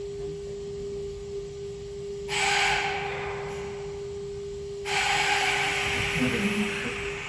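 A Kintetsu electric train gives off a steady high-pitched hum, with two long hissing bursts over it: the first about two seconds in, the second from about five seconds in. This is the unfamiliar noise from the train.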